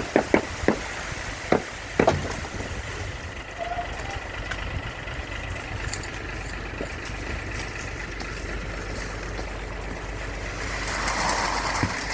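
Concrete mixer truck's diesel engine running steadily, with several sharp knocks in the first two seconds. A rushing hiss rises near the end.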